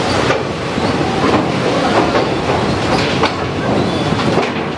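Railway coach wheels running slowly over the rails of the steel Pamban sea bridge, with irregular metallic clanks and knocks, heard from an open coach doorway. The train is held to about 10 km/h on the bridge.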